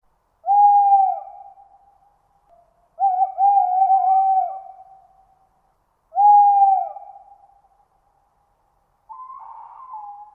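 An owl hooting: three loud, pitched hoots a few seconds apart, each about a second long with a drop in pitch at the end, the middle one broken into several quick notes. A quieter, slightly higher call follows near the end.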